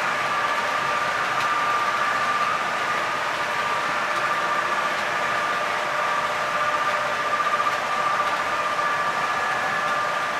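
OO gauge model diesel locomotive running under DCC sound, its decoder playing a steady diesel engine sound through a small onboard speaker, over the even running noise of the model train on the track.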